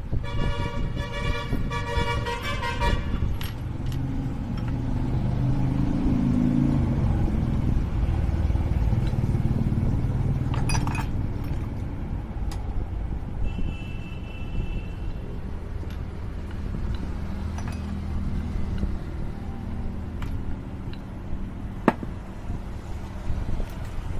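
Road traffic: a vehicle horn honks in short pulses for about the first three seconds, then motor vehicle engines run and pass. There is a brief high beep about midway and a single sharp click near the end.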